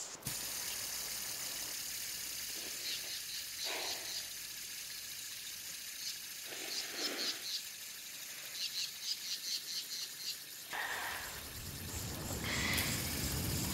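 Outdoor park ambience: a steady hiss with small birds chirping in short, quick trills several times. A low rumble comes up near the end.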